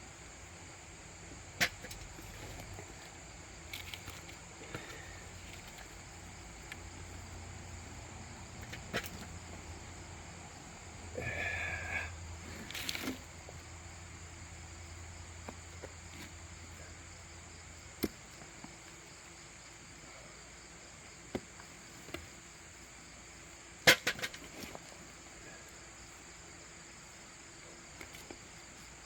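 Steady high insect trill of crickets, broken by a few sharp knocks and scrapes from digging potatoes out of the soil. The loudest knock comes late on.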